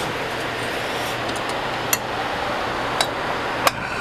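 A few sharp clicks of metal parts knocking together as gas fittings are handled, three in a little under two seconds, over a steady rushing background noise.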